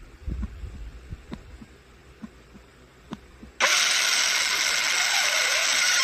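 Faint low rumble with scattered soft clicks, then about three and a half seconds in a sudden loud, harsh, hissing blast of noise that holds steady: a jumpscare sound effect.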